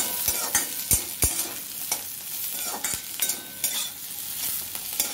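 Carrot and capsicum strips sizzling in butter in a metal wok while a spatula stirs and scrapes them. The spatula knocks against the pan several times, most of them in the first second and a half.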